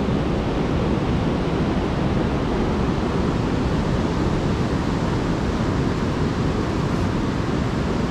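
Steady rush of water pouring over Pulteney Weir on the River Avon.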